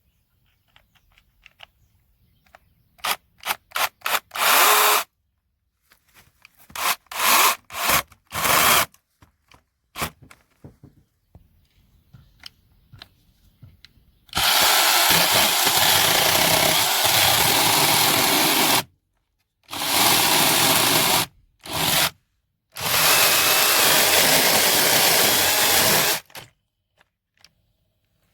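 Bosch EasyChain 18V-15-7 cordless mini chainsaw with a brushless motor, first run in a series of short trigger bursts, then in four longer runs of several seconds each with short pauses between.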